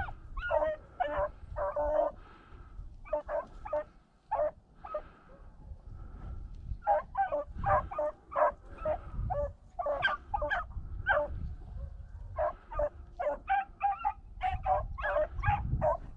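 Beagles baying: quick runs of short, pitched barks and yips, broken by brief pauses, the cry hounds give while running a scent trail. A low rumble from wind or movement sits underneath.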